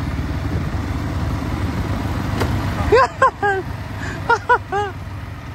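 ATV engines running at low speed with a steady low rumble. About three seconds in and again about four and a half seconds in come two quick groups of short, loud, rising-and-falling calls, three notes each.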